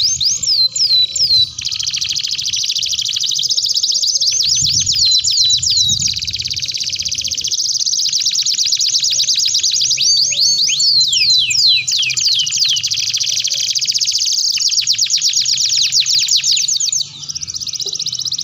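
Domestic canary singing a long, unbroken song of fast, high trills. Runs of quick downward-sweeping whistles come about a second in and again from about ten to thirteen seconds in.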